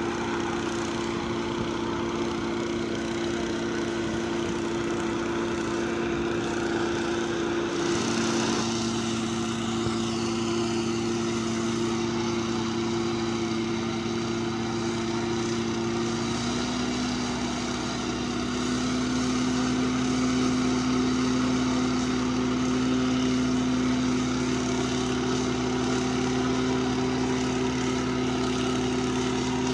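Small petrol engine of rail thermite-welding equipment running steadily, its note changing about eight seconds in and again about sixteen seconds in.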